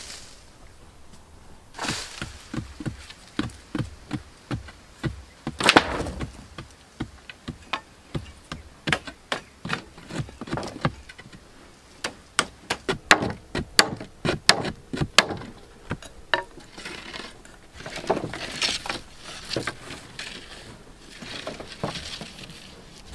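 Thin wooden poles being chopped and trimmed with a machete: a run of sharp, irregular knocks, several a second at times, followed near the end by rustling and scraping as the poles are handled and laid out.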